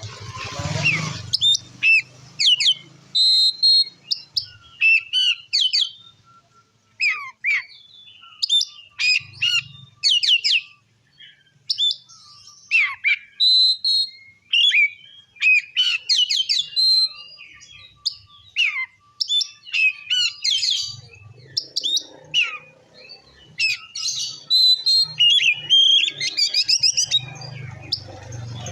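Oriental magpie-robin (kacer) singing loudly in full song: varied phrases of rapid, sharp whistled notes and quick glides, broken by short pauses.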